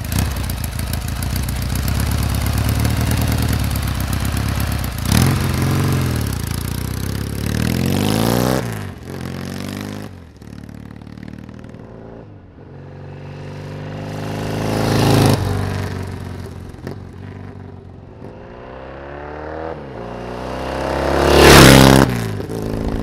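1973 Norton Commando 850's 828cc parallel-twin engine running through its Dunstall-style exhaust: revving while the bike sits, then riding off. The engine note swells to a peak and falls away in pitch as the bike passes, about fifteen seconds in and again, loudest, near the end.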